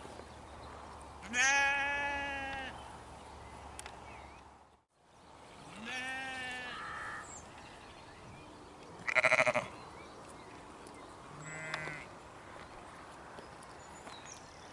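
Sheep bleating: four separate bleats, the first two long and wavering, the third, about nine seconds in, the loudest and harshest, and the last one short.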